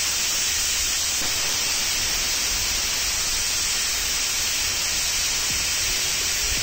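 Stovetop pressure cooker hissing steadily as steam escapes at the vent around its whistle weight.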